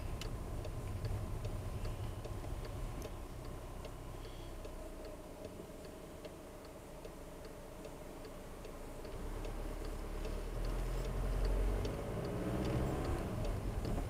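A car's turn-signal indicator ticking steadily, about twice a second, inside the cabin over low engine and road noise. About nine seconds in, the engine note rises and gets louder as the car accelerates.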